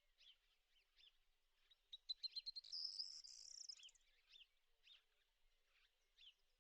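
Small birds calling faintly with short, repeated chirps, and a louder song about two seconds in: a run of quick ticks that turns into a high buzzy trill lasting a couple of seconds.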